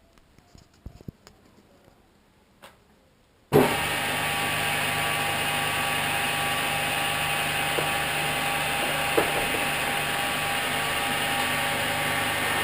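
A few faint clicks and knocks, then about a third of the way in a metal lathe switches on with a sudden jolt and runs steadily, a machine hum with several steady tones. The lathe is driving the hole-saw tube notcher.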